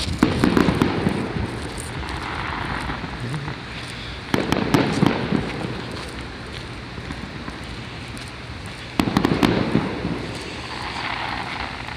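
Aerial fireworks shells bursting: three loud bangs about four and a half seconds apart, each trailing off over about a second.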